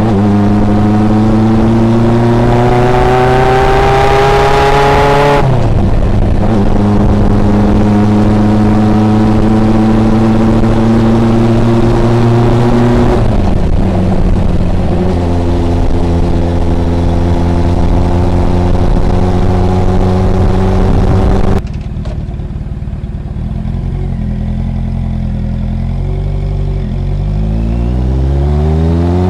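Suzuki GS750's air-cooled inline-four engine through a homemade 50 mm exhaust silencer, deep and loud, accelerating through the gears: the pitch climbs, drops at upshifts about five and thirteen seconds in, and climbs again. About two-thirds through, the throttle closes and the engine runs suddenly quieter, then the revs rise again near the end.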